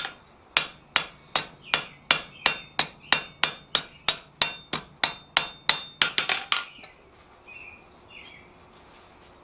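Blacksmith's hand hammer striking red-hot steel on an anvil, about three even blows a second, each with a short metallic ring. It ends with a quick run of lighter taps about six seconds in, then stops.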